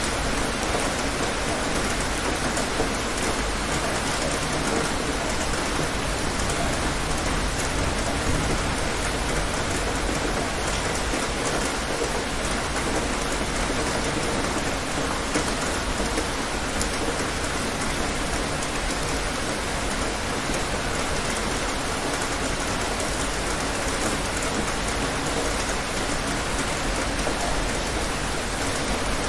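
Steady rain falling, an even hiss of drops with no distinct thunderclap.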